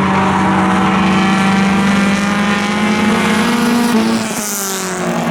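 Four-cylinder dirt track race cars running at speed: a steady engine drone, slowly climbing in pitch, with a car's engine note dropping about four seconds in as it passes, followed by a brief hiss.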